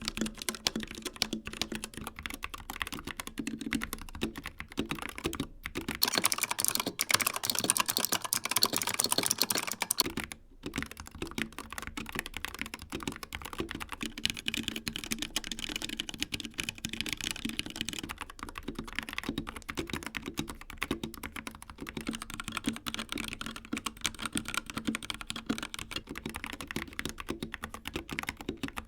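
Typing on a series of mechanical keyboards in turn: a Royal Kludge H61 Plus with RK Red linear switches, then a Razer Huntsman Mini with clicky Razer Purple optical switches, which is louder and sharper for about four seconds, then a HyperX Alloy Origins 65 with HyperX Red switches and an Endorfy Thock Compact with Kailh Box Black clicky switches. The key presses are fast and continuous.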